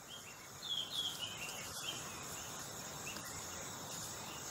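Steady, high-pitched drone of insects, with a few short chirps about a second in.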